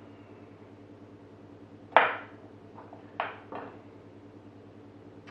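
Chef's knife knocking on a wooden chopping board while cutting the woody core out of a parsnip: one sharp knock about two seconds in, then three lighter knocks over the next second and a half.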